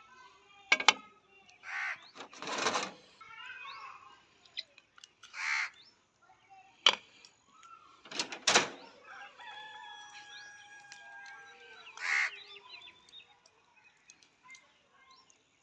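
Birds calling: several short harsh calls and one long held crow about ten seconds in. Mixed with sharp clicks and scraping from metal skewers being loaded with marinated chicken pieces and set down on the dishes.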